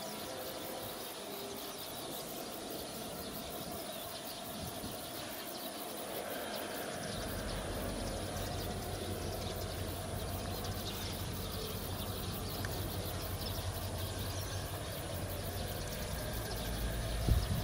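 Steady low rumble of distant diesel-electric locomotive engines, the train's two CC 205s, out of sight. It comes in about seven seconds in and swells near the end, over outdoor background noise.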